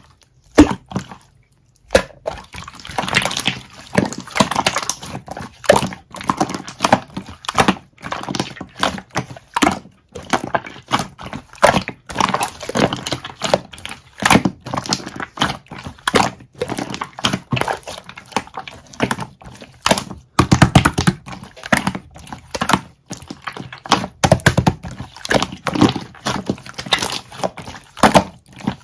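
Slime being squished and pressed by hand, making a dense, irregular run of sticky wet clicks and pops, with a short pause about a second in.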